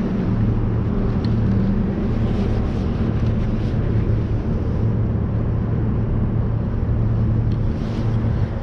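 A boat engine running with a steady low drone.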